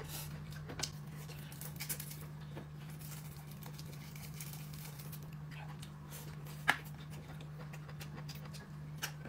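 Quiet eating sounds at a table: scattered small clicks and rustles, with one sharper click about two-thirds of the way through, over a steady low electrical hum.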